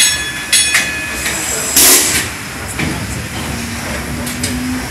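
P.S. Waverley's triple-expansion diagonal steam engine running, with its cranks turning. A ringing metallic clank comes about half a second in, and a loud burst of steam hissing about two seconds in.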